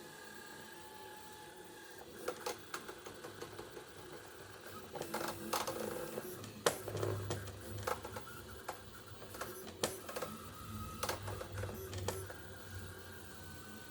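Stepper motors of a robotic-arm 3D printer running: a faint steady whine at first, then from about two seconds in a busy, irregular run of sharp clicks and buzzing as the arm makes short printing moves.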